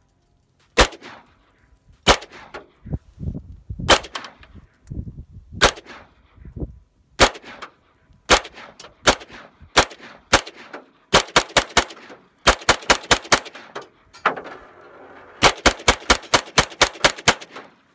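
A 9mm AR-style carbine fired semi-automatically with hollow-point rounds, each shot echoing. It starts with single shots a second or two apart, then comes in quicker strings of four to ten shots, about thirty in all. The firing stops with the bolt locking back one round short, because the converted 9mm magazine fails to feed its last round.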